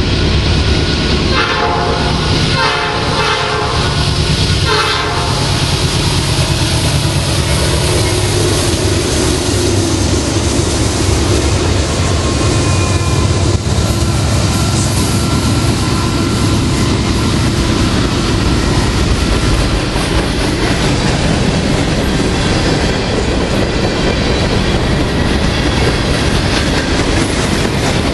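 Norfolk Southern diesel freight train: the locomotive's air horn sounds a held chord for a few seconds near the start. The locomotives then pass close with a heavy engine rumble, followed by the steady rumble and clatter of freight car wheels on the rails.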